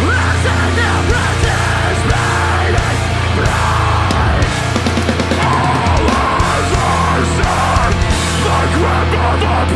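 Heavy metal band playing live: distorted guitars, bass and a fast, dense drum kit.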